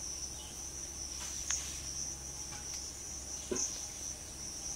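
Steady, high-pitched insect chirring, unbroken throughout, with two short clicks, one about one and a half seconds in and one about three and a half seconds in.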